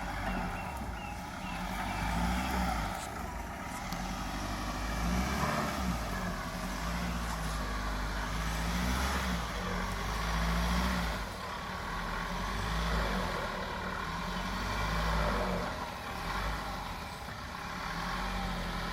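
Off-road 4x4 engine revving up and falling back again and again, each rise lasting a second or two, working the vehicle through deep mud.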